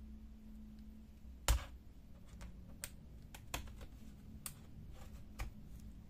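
Sharp clicks as a Dell Vostro 5471 laptop's bottom-cover clips snap loose under a thin pry tool worked along the seam. The loudest comes about a second and a half in, followed by a few more roughly a second apart, with fainter ticks between.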